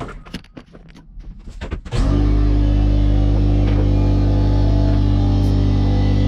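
A few scattered clicks and knocks, then from about two seconds in, loud rock music with guitar, steady and held.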